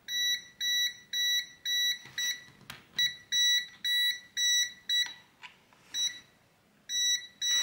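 VENLAB VM-600A multimeter's non-contact voltage detector beeping at about two beeps a second as it senses live mains voltage in a power cord. The beeps stop for a moment after about five seconds and start again near the end, with a few handling clicks in between.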